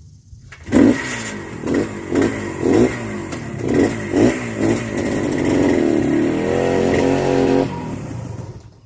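A 1975 Harley-Davidson SS250's two-stroke single-cylinder engine bursts in about a second in and is revved in a quick series of short rises. It then runs steadier for a couple of seconds before falling away near the end as the engine is shut off.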